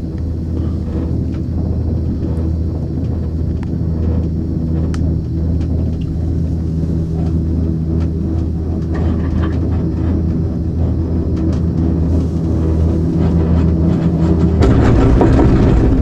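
A Gerhard Müller four-seat monocable gondola cabin running along the haul rope, a steady low rumble and hum. Near the end it grows louder and rougher as the cabin passes a support tower and its grip rolls over the tower sheaves.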